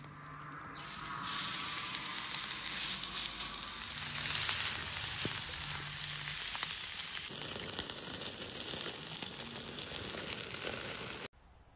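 Steak sizzling as it sears, a dense hiss with crackling pops. It starts about a second in, grows fuller about seven seconds in, and cuts off suddenly near the end.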